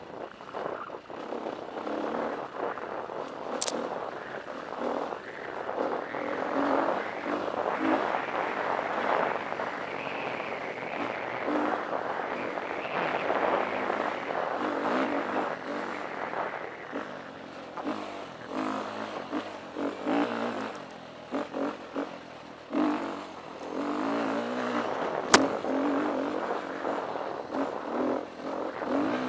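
KTM 350 EXC dirt bike's single-cylinder four-stroke engine revving up and down as the bike is ridden along a rough trail. Two sharp clicks cut through, a faint one a few seconds in and a louder one near the end.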